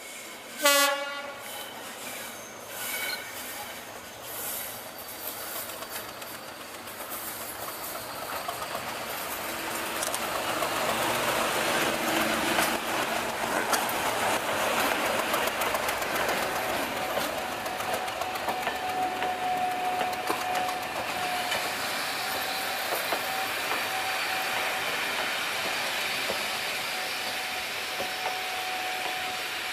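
Class 37 diesel locomotive sounds a short horn blast about a second in, then passes close by hauling a train of coaches: engine noise building up over several seconds, with wheels clattering over the rails. A thin steady wheel squeal runs through the second half as the coaches roll by.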